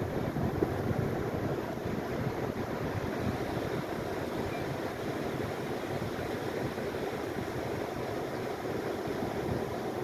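Steady rush of surf washing onto the beach, mixed with wind rumbling on the microphone.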